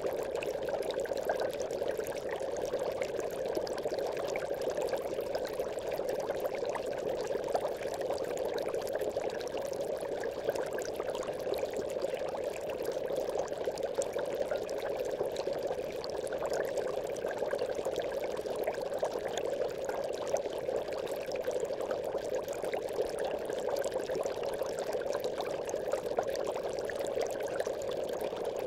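Aquarium bubbles: a continuous stream of air bubbles rising through water, an even, unbroken bubbling flecked with many small pops.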